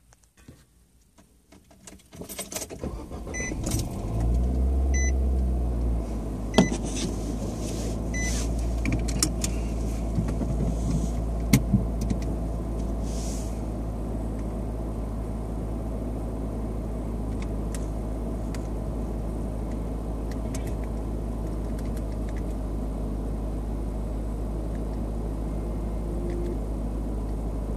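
A Nissan Sentra's four-cylinder engine is started with a jangle of keys and a few short chime beeps. It rises to a brief higher-revving flare and then settles into a steady idle.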